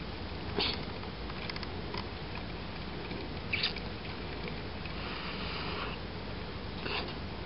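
Small paintbrush scratching across a plastic HO-scale model container: three brief scratchy strokes about three seconds apart, with a softer brushing hiss about five seconds in, over a steady low background noise.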